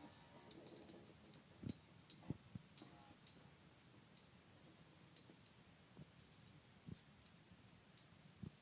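Two Beyblade spinning tops clashing in a plastic stadium: faint, irregular clicks as they knock together, thicker in the first few seconds and sparser later, with a few dull low knocks mixed in.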